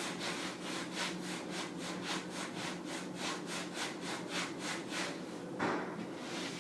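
Sponge scrubbing the inside of a refrigerator in quick back-and-forth strokes, about four a second. The strokes stop about five and a half seconds in, followed by a single knock.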